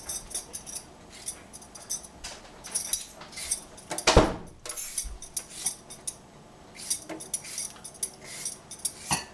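A metal vegetable peeler scraping strips of skin off a cucumber in a run of short, irregular strokes over a stainless steel sink. About four seconds in there is one louder knock.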